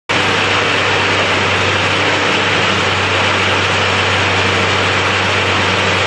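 Corn stalk silage baler running steadily: a loud, even machine noise over a low, constant hum.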